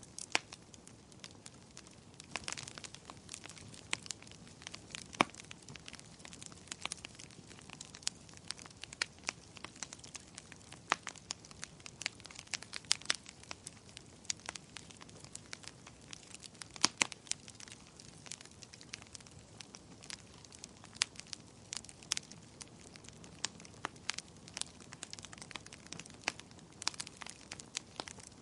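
Wood fire crackling: irregular sharp pops and snaps, several a second, over a soft hiss of burning.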